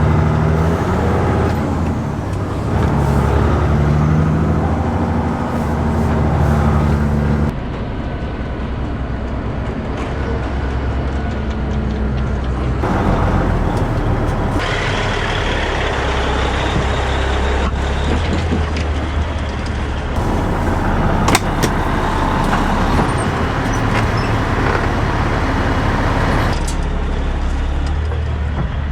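Heavy diesel harvest machinery running steadily, heard in a string of short clips that cut abruptly from one to the next.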